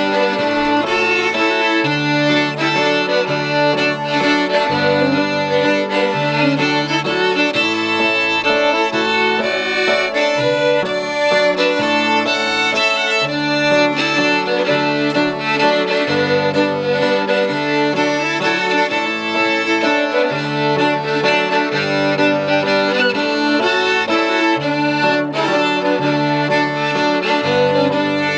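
Two fiddles playing a fiddle tune together, with piano accompaniment carrying the bass and chords underneath.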